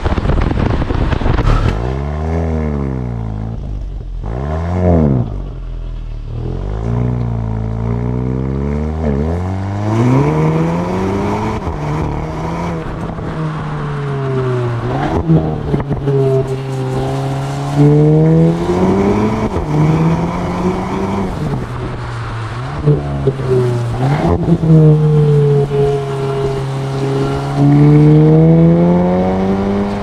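2023 Volkswagen Golf GTI's 2.0-litre turbocharged four-cylinder engine revving. After a couple of seconds of rushing noise come several short rises and falls in pitch. From about ten seconds in, longer pulls follow, with the pitch climbing, holding and dropping again and again.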